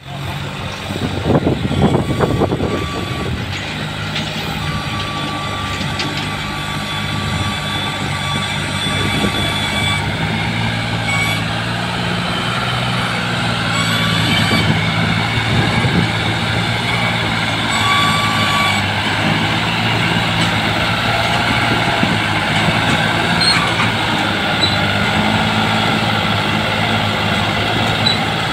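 New Holland tractor's diesel engine working hard as it hauls two heavily loaded sugarcane trailers, loudest and roughest in the first few seconds, then a steady laboured drone. A thin high tone sounds for several seconds now and then.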